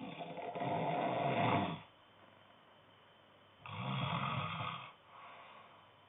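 A man snoring in his sleep: a loud snore of about two seconds, a pause, a second shorter snore about halfway through, then a softer breath out.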